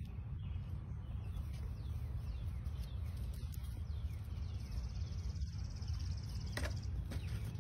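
Outdoor yard ambience: a steady low rumble, like wind on the microphone, under faint bird chirps. A high buzzing trill runs for about two seconds past the middle and ends with a sharp click.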